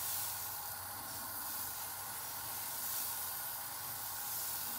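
Dosa batter sizzling on a hot pan with a steady hiss as it is spread out thin in circles with a ladle.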